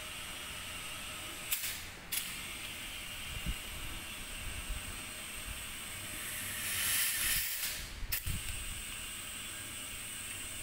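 Compressed air hissing at a car tyre's valve through a dial-gauge tyre inflator while the tyre pressure is set, with a louder burst of hiss about two-thirds of the way through. Two sharp clicks sound about two seconds in.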